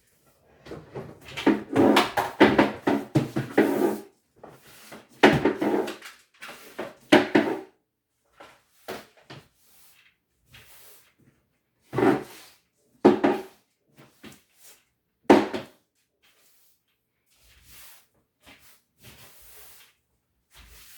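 Clatter and knocks of household objects being handled and set down: a dense rattling run of about three seconds, then several separate knocks.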